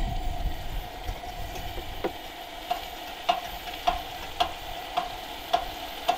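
Chicken and onions sizzling in a wok over a pump-pressurized camp stove: a steady frying hiss, joined from about two and a half seconds in by an even ticking roughly twice a second.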